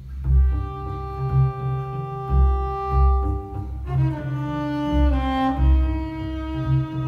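Multitracked double basses playing together: a bowed upper line holds long notes, moving to lower pitches about four seconds in, over low bass notes in a repeating rhythm.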